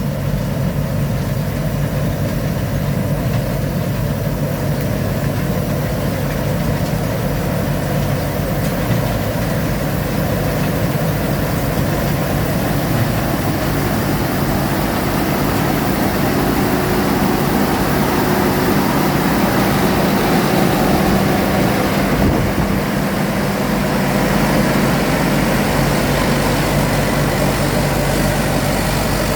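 Large rice combine harvester running steadily, its engine and threshing machinery giving a continuous loud drone whose pitch shifts a little partway through.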